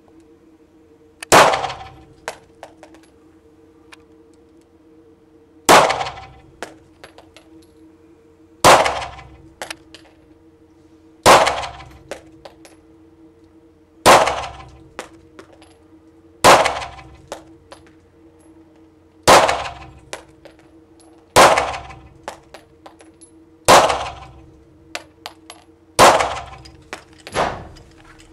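Steyr L9-A1 9 mm pistol fired in slow aimed single shots, about ten in all, roughly two to three seconds apart. Each shot rings and echoes off the concrete walls of an indoor range.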